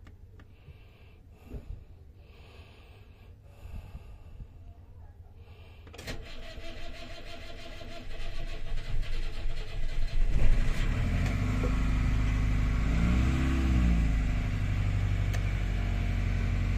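Broom DC 30 motor cruiser's inboard engine being started from the helm key: a click about six seconds in, the starter cranks for about four seconds, and the engine catches, its speed rising and falling once before it settles to a steady idle.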